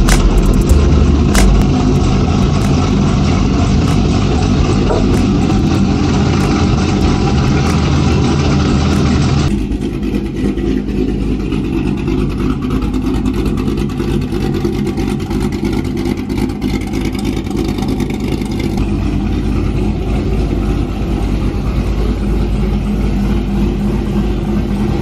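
Cammed C7 Corvette Z06's supercharged 6.2-litre V8 idling steadily on a stage 2 cam that has not yet been tuned. The idle is louder and deeper for about the first ten seconds, then quieter after a sudden change.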